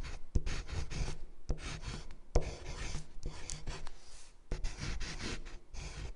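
Pen scratching across paper in a run of quick strokes, as when writing out a signature, with a couple of sharper taps among them.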